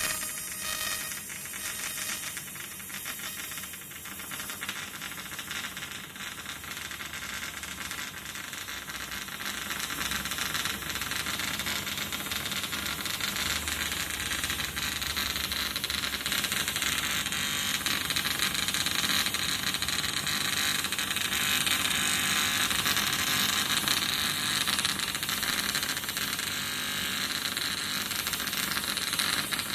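AC TIG welding arc on aluminium: a steady hissing buzz with a fine crackle, growing somewhat louder about ten seconds in.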